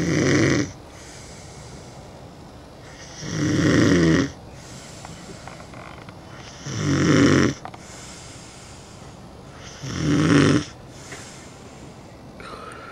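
A sleeping man snoring: four loud snores about three and a half seconds apart, each lasting about a second.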